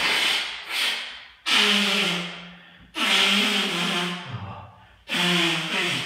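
A man blowing his nose hard: two short puffs, then three long, wet honking blows, each starting suddenly and trailing off over about a second.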